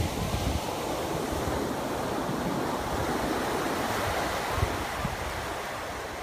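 Ocean surf washing up the beach, a steady rush that swells in the middle and eases near the end, with wind buffeting the microphone.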